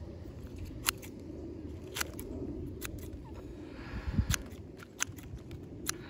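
Orange-handled scissors snipping through green onion leaves, trimming the tops: a series of short, sharp snips about a second apart.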